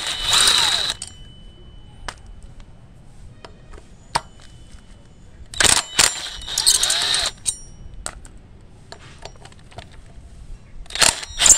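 Power drill with a long hex bit loosening the bolts of a motorcycle's rear brake disc. It runs in short bursts of about a second, three times, near the start, about six seconds in and near the end, with small metal clicks between.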